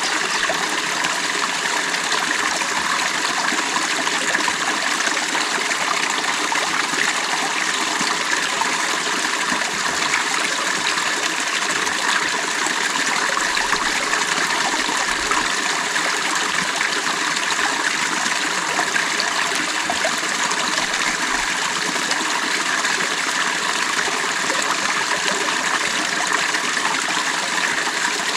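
Creek water running steadily over rocks, an even rushing and trickling babble.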